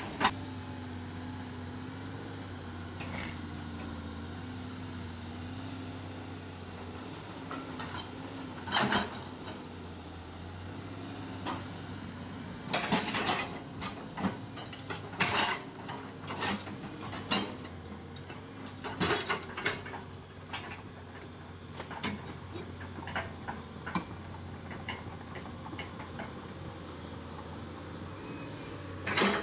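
An engine running steadily, overlaid by a string of sharp knocks and clanks that come thickest in the middle of the stretch.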